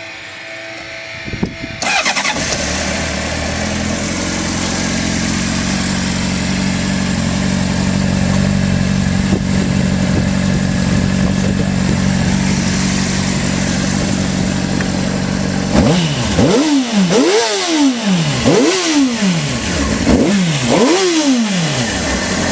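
A 2004 Honda CBR600RR's inline-four engine on its stock exhaust starts about two seconds in and idles steadily. Near the end it is revved in a series of quick throttle blips, each rising and falling in pitch.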